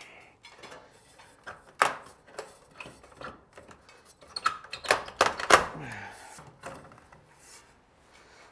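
Irregular clicks, knocks and light clinks of small metal and plastic fixture parts being handled and pulled free while an old ceiling light fixture is taken apart. The loudest knocks come about two thirds of the way in.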